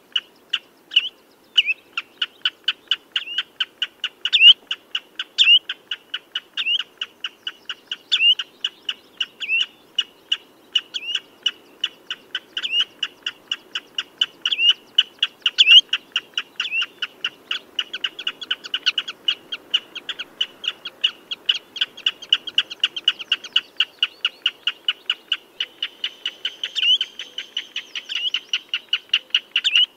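Common redshank calling: a fast, steady series of short, high piping notes, several a second, kept up without a break.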